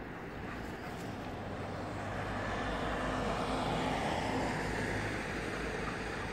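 A passing vehicle: a broad rushing engine noise with a faint low hum that swells to its loudest about four seconds in, then fades.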